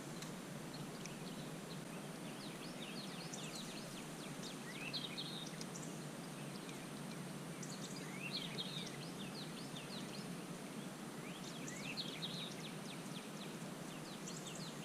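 A songbird singing short phrases of quick chirping notes, repeated every few seconds, over a steady outdoor background hiss.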